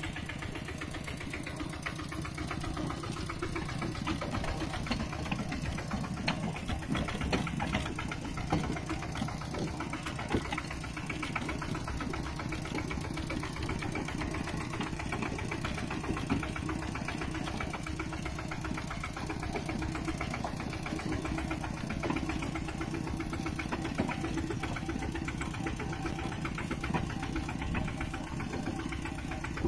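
Mini tractor engine running steadily with a fast, even firing rhythm, with occasional louder knocks and clatters, mostly in the first half.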